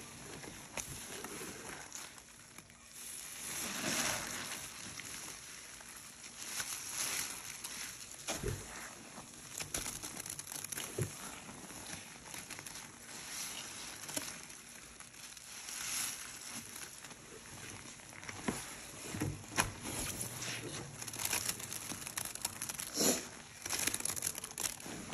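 Gloved hands squeezing and mashing a sponge through thick wet white cleaning-powder paste and foamy water: irregular wet squelching and crackling foam, with sharp clicks scattered throughout.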